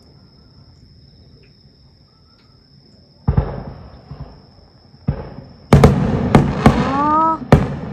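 Fireworks going off: a deep boom a little after three seconds in, another about two seconds later, then a quick run of sharp bangs and crackles near the end, with a short rising-and-falling tone among them.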